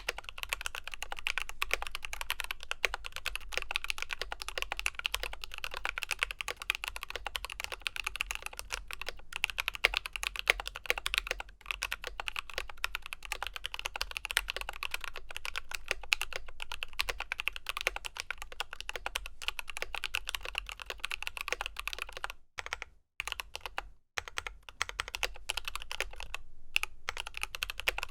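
Mechanical keyboard being typed on steadily and fast, a dense stream of keystroke clacks, broken by two short pauses near the end.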